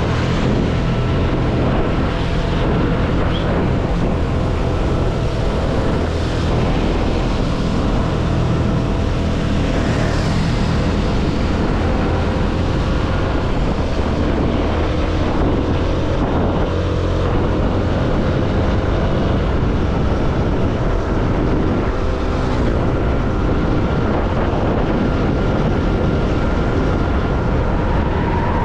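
CFMoto motorcycle engine running steadily while riding, its pitch shifting a little as the revs change in the middle. Wind noise rushes over the microphone.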